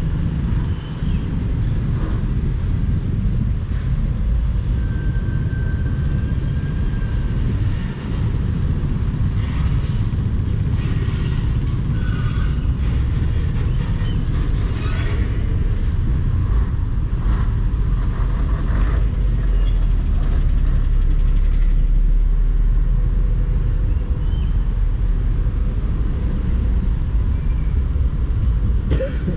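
Steady low rumble of a Honda motorcycle riding slowly through dense traffic, with trucks running close alongside.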